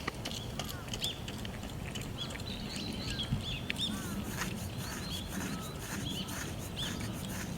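Small birds chirping repeatedly: many short, arched chirps, with scattered sharp clicks among them.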